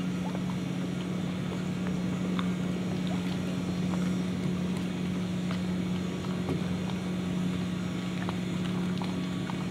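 A boat motor humming steadily at one unchanging pitch, with a few faint ticks over it.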